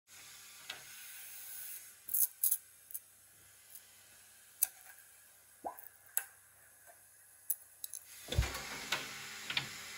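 Light clicks and taps of 3D-printed parts being handled and picked off a textured printer build plate, with a short squeak in the middle and a dull thump with more handling noise near the end.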